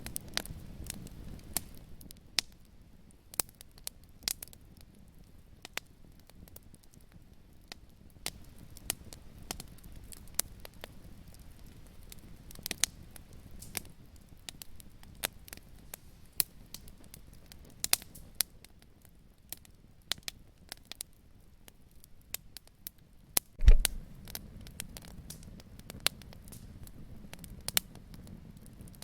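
Wood fire crackling in a fireplace: a low, steady rumble of flames with irregular sharp pops and snaps, and one much louder pop about three-quarters of the way through.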